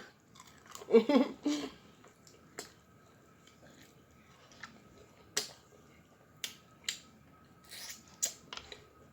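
Close-up mouth sounds of eating sauced chicken wings: scattered wet smacks and sharp crunching clicks from chewing, with a brief voiced murmur about a second in.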